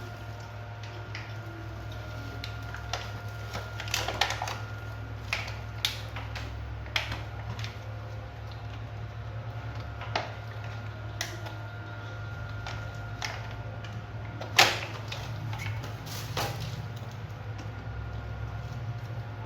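Scattered clicks and knocks of toy vehicles being handled and set down, irregular and a second or more apart, the loudest about fifteen seconds in, over a steady low hum.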